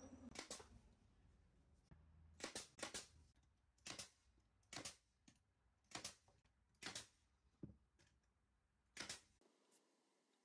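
Near silence broken by about nine faint, short clicks, spaced roughly a second apart.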